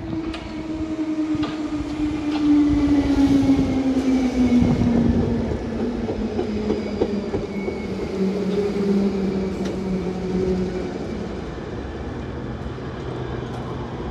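A London Underground 1972 stock Bakerloo line train moving along the platform. Its motor whine falls slowly in pitch as it slows, with a few wheel clicks over the rail joints. Near the end the whine gives way to a lower steady hum.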